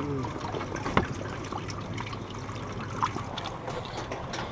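Water trickling and splashing in a water-filled fish weigh-in bag as bass are lowered into it, with a couple of sharp knocks, about one and three seconds in.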